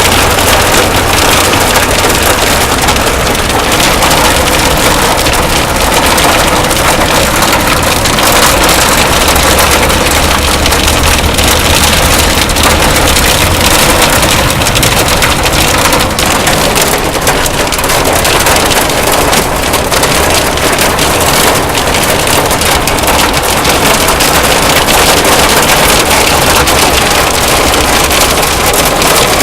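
Heavy hail coming down: a loud, dense, continuous clatter of countless hailstone impacts with no let-up.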